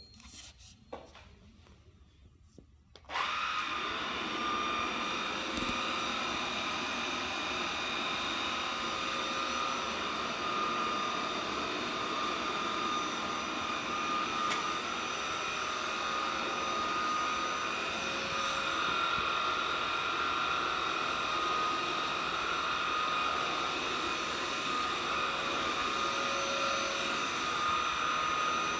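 A few faint clicks, then about three seconds in a Viomi A9 cordless stick vacuum cleaner switches on suddenly and runs steadily with a constant whine while its floor head is pushed over tiles.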